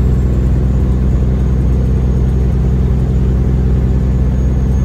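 Semi truck's diesel engine running steadily at cruise, heard inside the cab with tyre and road noise, its pitch holding level.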